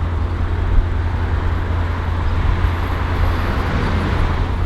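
Car driving at a steady pace: a constant low engine drone with road and wind noise.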